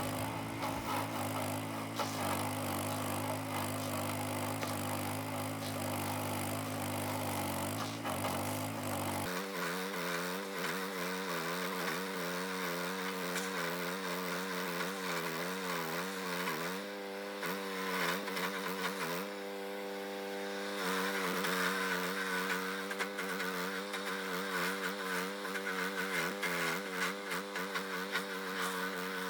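Engine running steadily. About nine seconds in the sound changes abruptly, and from then on the pitch wavers up and down.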